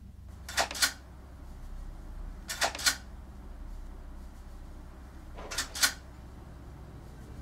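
Scissors snipping paper: three pairs of quick snips about two and a half seconds apart, over a low steady hum.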